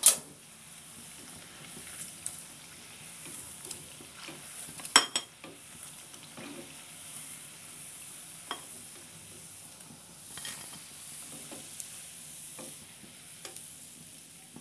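Milk-powder jilapi (jalebi) sizzling steadily as they deep-fry in hot oil, while a slotted spoon scoops them out. The spoon knocks against the pan now and then, loudest right at the start and about five seconds in.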